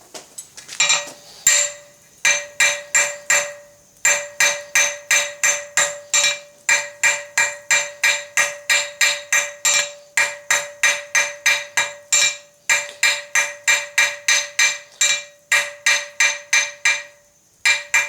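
Blacksmith's hammer striking hot 6 mm round bar on an anvil, a steady run of about three to four blows a second with a few short pauses, the anvil ringing between blows, as a taper is drawn out into a square point.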